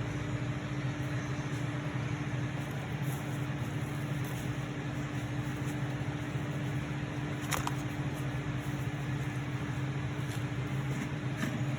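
Steady mechanical hum of a motor or fan running in the shop, unchanging throughout, with a single sharp click about seven and a half seconds in.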